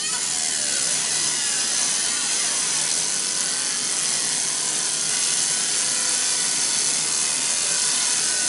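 Laser engraver with a scanning head engraving a workpiece: a loud, steady, scratchy hiss as the beam burns away the surface, with faint sliding tones over it.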